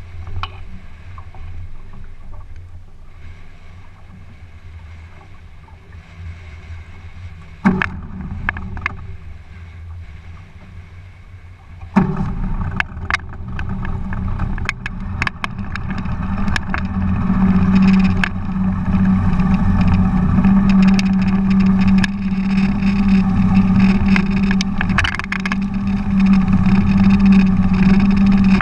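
A motorboat's engine running low and quietly, then opening up sharply about twelve seconds in and climbing to a steady loud drone as the boat gets up to speed. Water rushes past the hull, with scattered sharp knocks.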